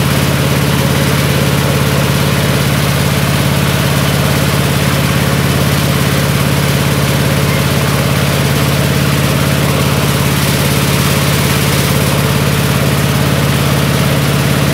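Mobile rice-milling machine running steadily while hulling rice: an even, loud engine drone with a strong low hum that never changes speed.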